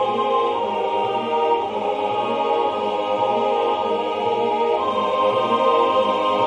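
Four-part choir singing slow, sustained chords over a low part that repeats a rocking 'Ah' figure. It grows louder near the end as a forte passage begins.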